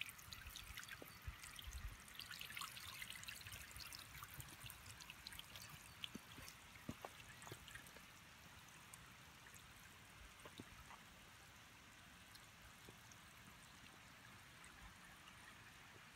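Garden fountain running: a bell-shaped sheet of water from a nozzle atop a stone dome splashes and trickles onto the stones, with many small drips. Quiet throughout, it grows fainter and steadier after about eight seconds.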